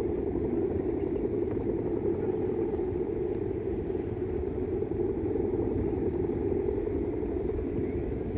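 Strong wind rushing and buffeting over the microphone, a steady low rushing that flutters rapidly in level.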